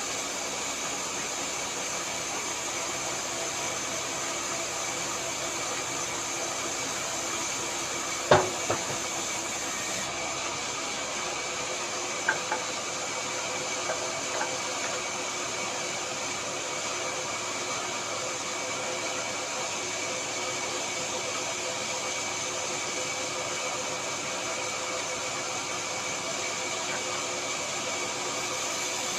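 A woodworking machine's electric motor running steadily at one speed, with one sharp knock about eight seconds in and a few lighter knocks a few seconds later.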